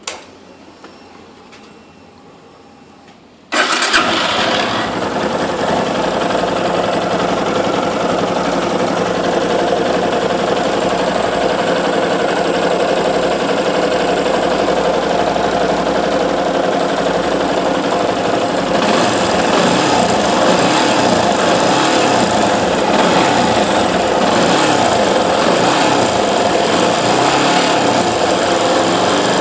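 Yamaha YS250 Fazer's air-cooled single-cylinder engine starting after a click and a few seconds of quiet, then idling steadily. The owner hears a 'tec tec tec' ticking above the normal engine noise, which a dealer mechanic called normal.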